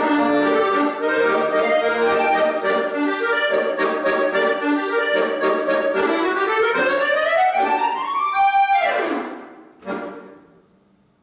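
Accordion playing a fast piece in dense runs. About six seconds in, a rising run climbs to a held high note. A quick falling sweep follows, and a short final chord about ten seconds in ends the piece.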